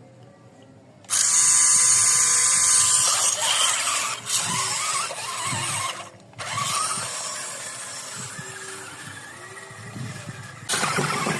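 Radio-controlled off-road car's motor and gearbox whining under throttle. It starts about a second in, breaks off briefly around the middle, then runs again.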